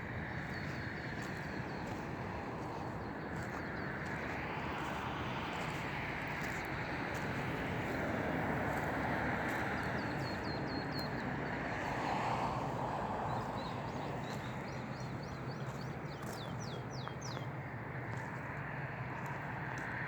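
Outdoor ambience: a steady rushing noise that slowly swells and fades, with small birds chirping in short rapid runs several times.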